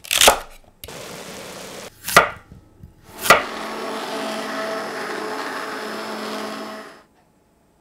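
A few sharp knife chops through celery onto a wooden chopping board, then a stick blender running in a pot of chunky vegetable soup for about three and a half seconds, cutting off suddenly.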